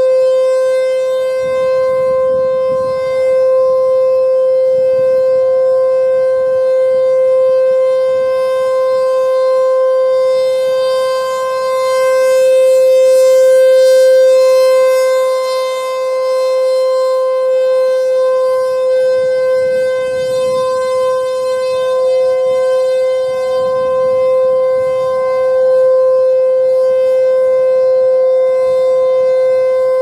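ASC T-128 rotating electromechanical outdoor warning siren sounding its steady Alert signal: one held pitch that swells and fades as the horn turns, loudest about halfway through.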